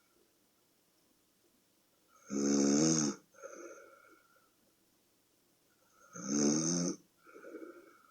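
A sleeping person snoring loudly: two loud snores about four seconds apart, each followed by a shorter, softer breath.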